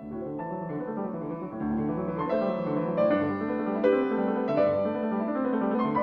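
Piano music, with several notes sounding together and the notes changing continually.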